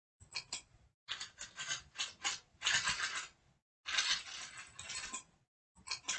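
Recorded typewriter sound effect: manual typewriter keys clacking in quick, irregular runs, broken by short silent gaps.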